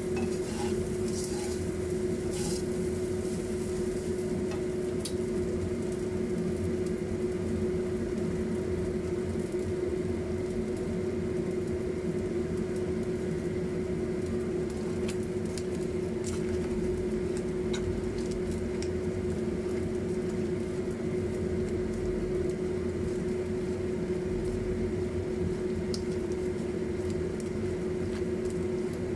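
Oil bubbling and sizzling around food rolls deep-frying in a pot, over a steady electrical hum, with a few light clicks of utensils.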